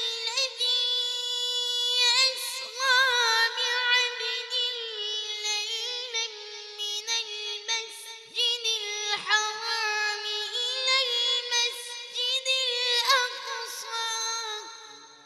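Melodic Quran recitation by a single high voice, in long held notes with wavering ornaments. It fades out near the end.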